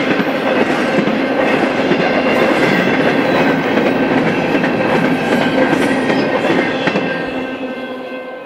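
Double-stack intermodal container cars of a BNSF freight train rolling past over the rails with steady wheel clatter. The last cars pass and the sound starts fading near the end.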